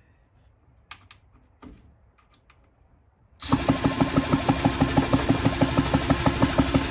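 A few faint clicks of handling. About three and a half seconds in, a drill starts spinning a McCulloch chainsaw engine over: a steady motor whine with a quick, even pulsing as the engine turns over without firing, during a spark check.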